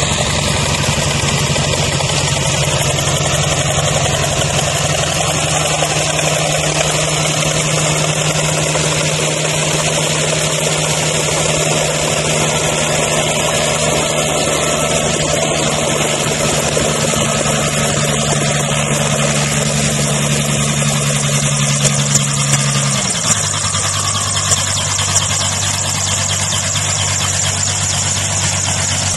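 Helicopter running at close range, a loud steady engine and rotor drone. About 23 seconds in its pitch steps down to a lower steady note.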